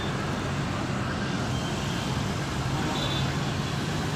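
Engine of a large coach bus running at low speed as it turns, a steady low drone.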